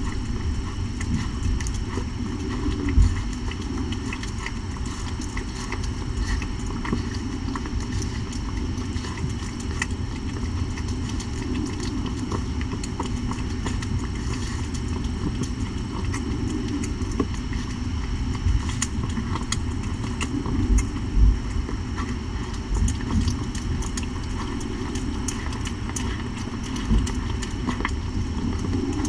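Mother cat purring steadily while nursing her newborn kittens, a low pulsing rumble, with a few soft thumps.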